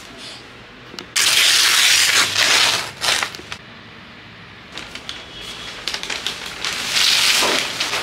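Newspaper wrapping being pulled off and crumpled by hand: two loud stretches of rustling, crackling paper, one starting about a second in and another near the end, with lighter crinkles between.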